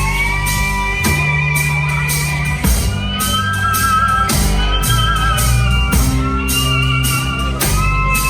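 A band playing an instrumental passage with long, wavering lead notes held over sustained bass notes and a steady beat.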